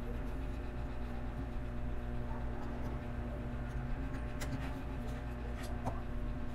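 Plastic LEGO pieces being handled and clicked together, a few faint clicks about four to six seconds in, over a steady low hum.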